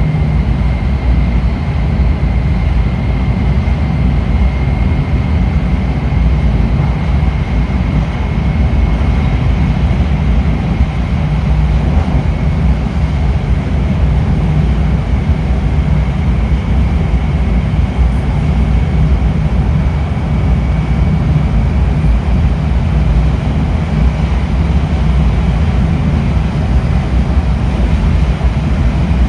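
Interior running noise of an E5-series Shinkansen car travelling at speed: a steady, loud low rumble of wheels and track. Over it sits a thin high-pitched whine that slowly fades.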